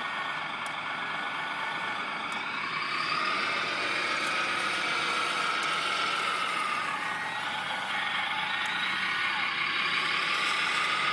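Radio-controlled Liebherr wheel loader, a Bruder scale model, whining from its electric motors and gears as it drives back from the soil pile. The whine swells about three seconds in, dips in pitch around two-thirds through and climbs again near the end.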